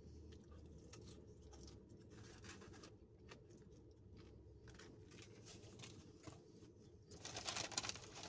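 Quiet faint chewing and handling sounds, then about seven seconds in a brief rustle of a paper fast-food bag being reached into, the loudest sound.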